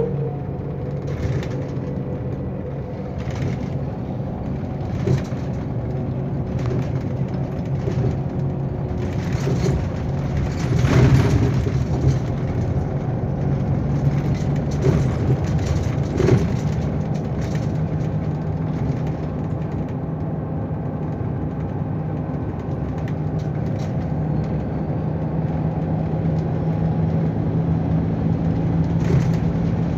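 A Neoplan Starliner coach's MAN D2066 turbo-diesel engine runs steadily while under way, heard from inside the cabin. Frequent rattles and clicks come from the bodywork and interior fittings, with louder clatters about a third of the way in and again just past the halfway point.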